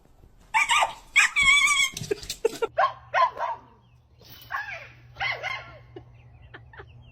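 A dog barking and yelping in a run of short, high calls, loudest in the first few seconds, followed by quieter barks.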